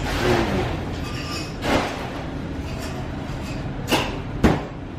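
Metal cutlery clicking against a plate a couple of times near the end, over a steady low rumble in the background.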